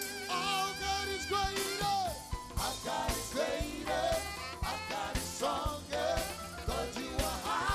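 Live gospel praise music: a worship leader sings over keyboard and a steady drum beat.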